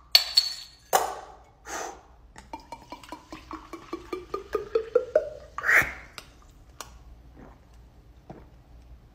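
Liquid poured from a glass bottle into a drinking glass: quick glugging pulses whose pitch rises steadily as the glass fills. A few sharp percussive mouth sounds come before the pour and a louder burst just after it, then faint gulps as the glass is drunk from.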